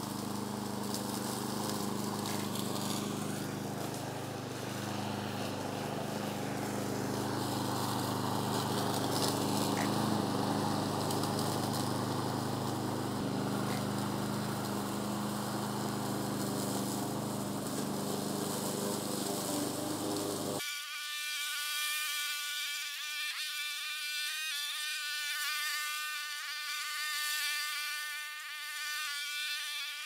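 Kohler Command Pro gasoline engine of a remote-control slope mower running steadily under load as its raised deck chews through chest-high brush, without bogging down. About 20 seconds in, the sound cuts suddenly to a thin, high buzz of the engine with no low end, the mower now heard at a distance.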